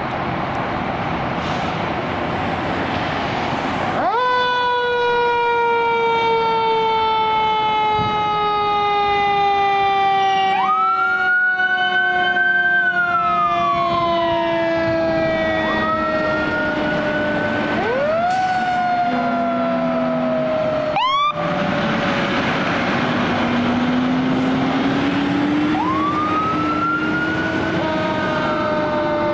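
Fire truck sirens on a responding fire engine, over road and engine noise. About four seconds in, one siren starts abruptly and falls slowly in pitch, while a second siren rises and falls several times over it.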